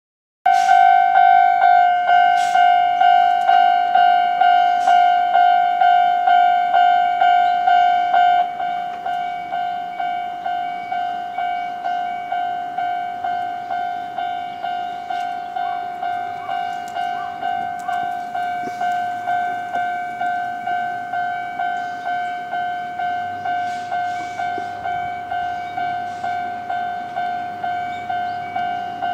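Japanese railway level crossing alarm ringing, a steady electronic ding repeated about twice a second, warning of an approaching train. It starts suddenly and drops somewhat in loudness about a third of the way in.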